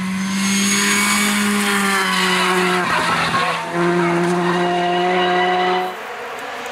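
Škoda Fabia R5 rally car's turbocharged four-cylinder engine at high revs as the car passes at speed. The pitch holds nearly level, breaks briefly about three seconds in, picks up again, and the sound cuts off near six seconds.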